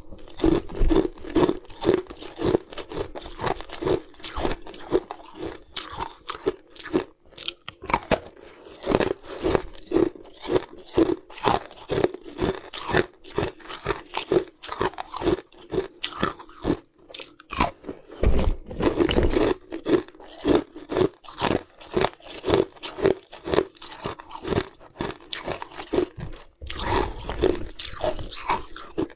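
A person biting and chewing hard blocks of ice: dense, irregular crunches, several a second, as the ice cracks and breaks between the teeth.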